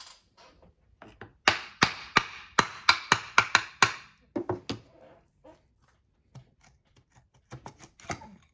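A Honda ATC90 engine side cover being knocked loose after its screws are out: a quick run of about ten sharp knocks, roughly four a second, then a few lighter knocks and scattered small clicks as it comes free.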